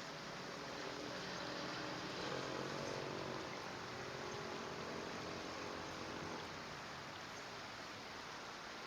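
Steady outdoor background noise, an even hiss with a faint low hum that swells slightly a couple of seconds in.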